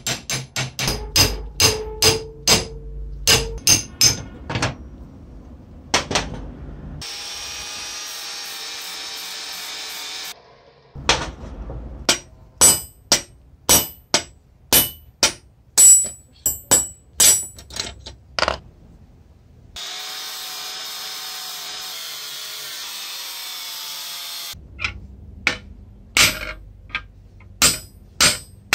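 Hammer blows on rusty steel parts against an anvil block, in runs of sharp strikes at about two a second. The runs are broken twice by several seconds of a power tool running steadily.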